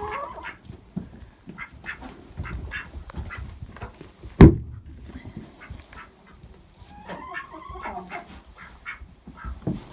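Backyard chickens and a mallard duck calling in many short clucks and quacks, with one loud sharp knock about four and a half seconds in.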